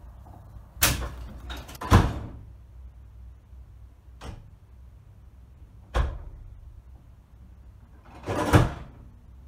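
Levers of a mechanical signal box lever frame being worked: a series of heavy metal clunks and clanks as levers are thrown over and latch home, loudest about two seconds in and again near the end.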